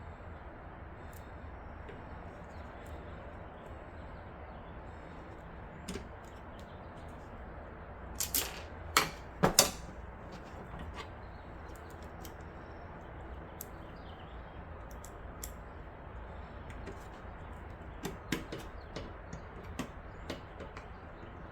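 Scattered clicks and knocks of computer parts being handled while a graphics card is fitted and secured in the case, with a close cluster of four or five sharp clicks about eight to ten seconds in and a few lighter ones near the end.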